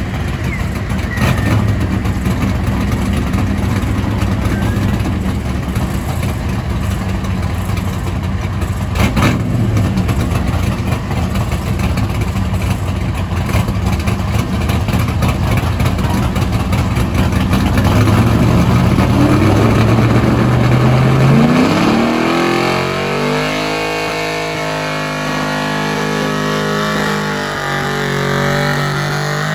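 Super Stock 4x4 pulling truck's engine running loud and rough at low revs. About twenty seconds in, the revs climb steeply and hold high and fairly steady as the truck pulls the sled under load.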